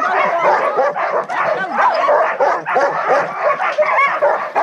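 A yard full of sled dogs barking and yelping all at once, many overlapping calls in a continuous din: the excited clamour of a team worked up and eager to run.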